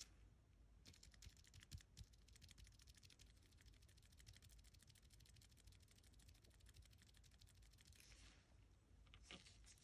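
Typing on a Keychron Q1 keyboard with lubed Cherry MX Silent Black switches and PBT keycaps: quiet, rapid keystrokes starting about a second in and running for about seven seconds, then a few separate key presses near the end.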